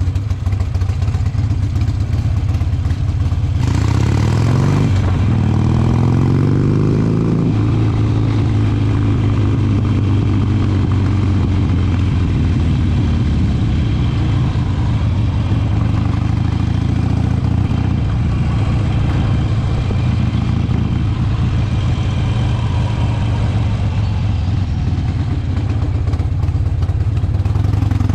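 Harley-Davidson V-twin engine running on a ride: about four seconds in it revs up, its pitch rising with a rush of wind noise, then it settles into a steady cruise, rising again near the end.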